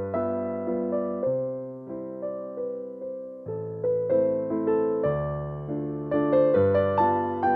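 Background piano music: a melody of struck notes, each fading away, a few notes a second over a low bass line.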